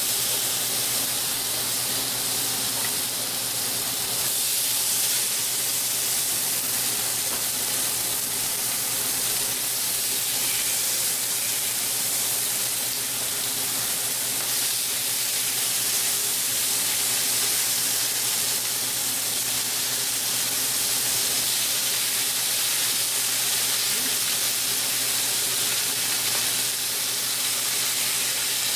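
Pork chops sizzling steadily on a hot stovetop griddle as more are laid down, with a steady low hum from a kitchen extractor fan underneath.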